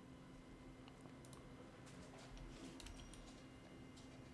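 Near silence with faint scattered clicks of a computer keyboard and mouse over a faint steady hum.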